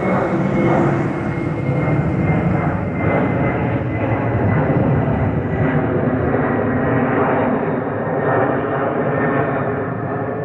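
Two General Electric CF6-80C2B6 turbofans of a Boeing 767-300ER freighter at climb power just after takeoff, passing overhead. The jet rumble is loud and steady, with a thin whine that slowly falls in pitch.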